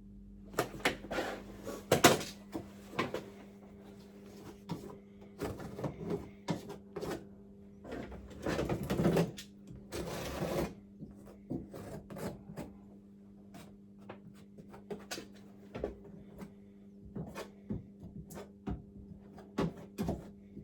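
A caulking gun being worked, with repeated clicks and knocks of the trigger and plunger as a bead of fire-rated mastic is squeezed out, and two longer scrapes about halfway through. A low steady hum runs underneath.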